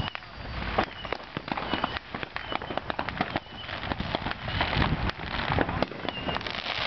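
Fireworks crackling and popping, with many sharp pops in quick, irregular succession.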